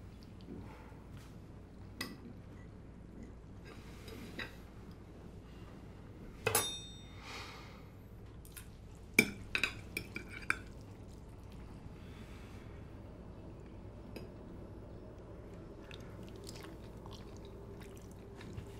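Forks clinking and scraping on dinner plates during a meal, with quiet chewing. One ringing clink comes about a third of the way in, and a quick cluster of sharper taps comes around the middle.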